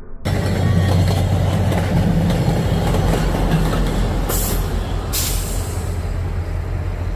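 VIA Rail passenger train passing close by: wheels running on the rails under the coaches, then the trailing F40PH diesel locomotive with its engine running as a steady low drone. It starts suddenly just after the start, and two short hisses come a little past the middle.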